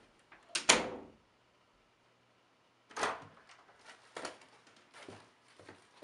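Interior door pulled shut by its freshly adjusted spring-loaded hinge, closing with a sharp double knock and bang about half a second in. About three seconds in the latch clicks as the door is opened again, followed by a few lighter knocks.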